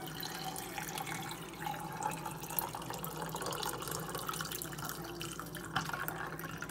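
Liquid running and splashing steadily into a container, with a single light knock near the end.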